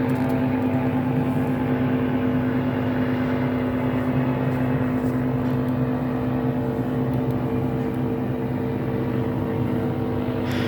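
A machine engine running at a steady speed, a constant-pitched drone with no change in revs.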